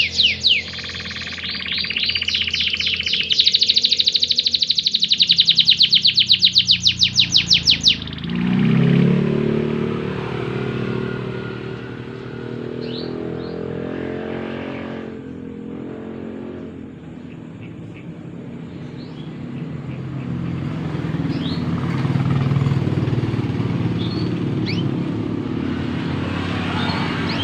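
Domestic canary singing fast, loud trills that stop abruptly about eight seconds in. A motor vehicle's engine then runs with a low, steady rumble for the rest of the time, with a few faint bird chirps over it.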